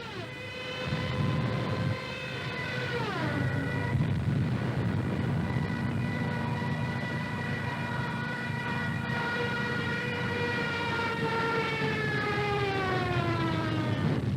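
Ju 87 Stuka dive siren wailing over a low engine drone, a sound effect on a wartime newsreel soundtrack. Its pitch drops sharply about three seconds in, holds steady, then slides down again near the end.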